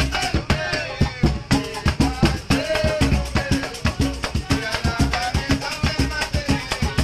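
Samba group playing: percussion keeps a steady, dense beat while voices sing over it.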